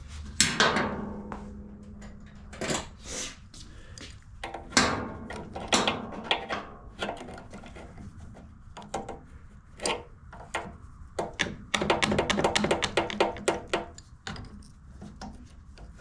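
Hand work on a small two-stroke generator's fuel line and hose clamp: scattered sharp clicks and thunks of tools and parts being handled, with a quick run of rapid clicks about twelve seconds in.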